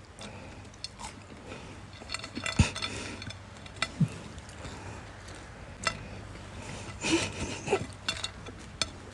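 Scattered light clinks and taps of small hard objects, with a sharper click about two and a half seconds in and a cluster of clatter near the end.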